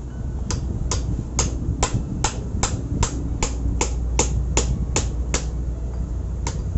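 Hammer tapping on metal during a motorcycle engine strip-down: about thirteen sharp, evenly spaced taps at roughly two and a half a second, then one more near the end. A low steady hum runs underneath.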